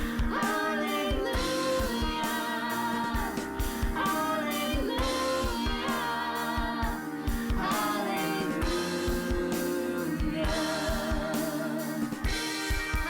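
Worship song with a solo singer over guitar and a drum kit keeping a steady beat.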